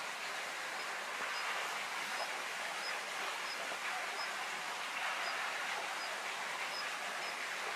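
Steady background noise of a batting practice venue, with no bat contact. A faint short high chirp repeats about every two-thirds of a second.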